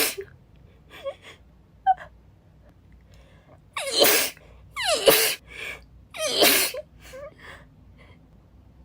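A woman sneezing three times in quick succession, about four, five and six and a half seconds in, with short gasping breaths around the sneezes.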